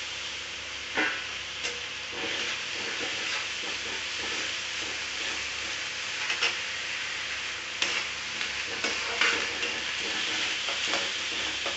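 Chopped onions and ginger-garlic paste sizzling in hot oil in a steel kadai, with a spatula scraping and knocking against the pan now and then as they are stirred. The onions are being fried towards golden.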